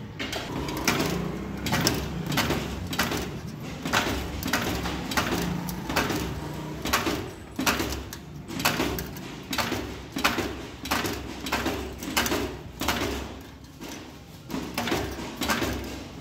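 Stainless steel strips being spot welded to a basket rim by a foot- or lever-operated spot welder. It fires again and again, a short crack with each weld, about two a second, over a low steady hum.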